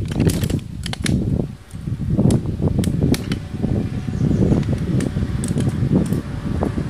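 Metal poles of a folding camp chair frame clicking and rattling as they are unfolded and snapped together, with a scatter of sharp clicks. Under them runs a loud, uneven low rumble.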